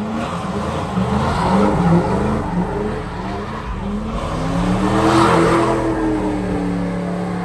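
A car doing donuts with its tyres squealing, the engine revving up and down at high revs. The revs climb to the loudest point about five seconds in, then hold.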